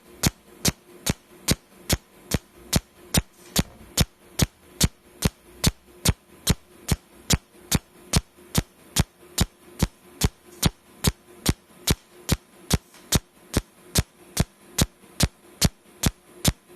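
Cold welding machine firing its welding pulses: a sharp snap about two and a half times a second at an even rate, over a faint steady hum.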